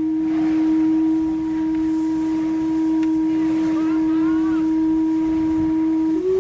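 A single steam calliope whistle on the SS Admiral riverboat, sounded on its own as the calliope's whistles are tested: it holds one long, steady note, then near the end switches to a slightly higher note.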